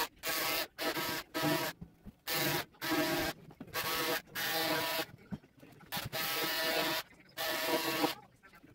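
About a dozen short mechanical bursts in quick succession, each well under a second, with a buzz in them, from a small handheld tool being worked against the piñata.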